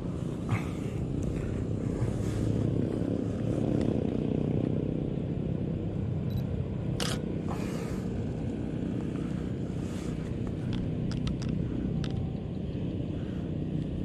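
Steady low outdoor rumble with a few sharp clicks of a Canon 6D's shutter: one just after the start, a louder pair about seven seconds in, and several quick ones around eleven to twelve seconds.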